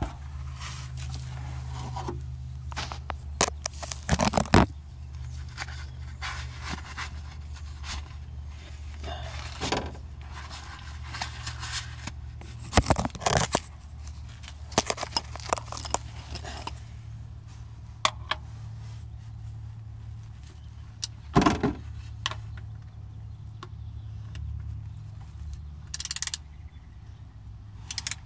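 Scattered metallic clicks, knocks and scrapes of hand tools and parts being handled under a car while an oil filter is fitted, over a steady low hum. The sharpest knocks come about 4, 13 and 21 seconds in.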